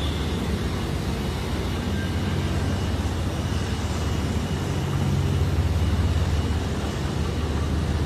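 Steady low rumble of motor traffic, with a faint thin high tone joining about three seconds in.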